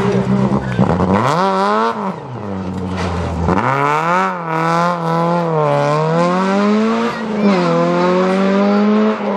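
Citroën Saxo rally car's engine revving hard as it powers out of a corner and accelerates away. The engine note climbs and drops sharply several times as it shifts and lifts.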